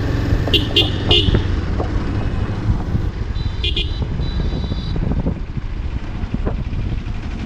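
Motorcycle on the move: a steady low rumble of engine, tyres and wind, with short horn toots about half a second and a second in, and another around four seconds in.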